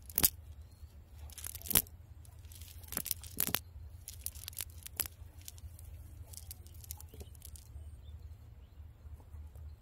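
Fine nylon fishing net crackling and rustling as hands pull it apart to pick out small fish and debris, with five sharp snaps in the first five seconds and fainter ticks after.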